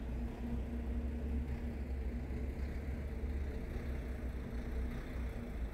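Road traffic on a city street: a steady low engine rumble from passing and idling vehicles, with a faint steady hum that weakens during the second half.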